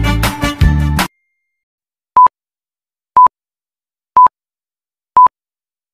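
Intro music cuts off about a second in. After a brief silence, a film-leader countdown beeps once a second: four short, identical single-pitch beeps.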